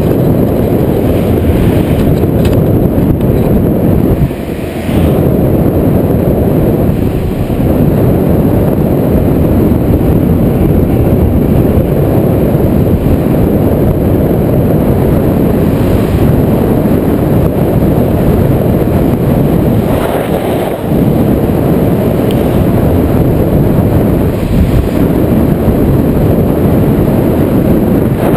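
Heavy wind buffeting the action camera's microphone as the bike moves at speed: a loud, steady, low rumbling rush that drops briefly a few times.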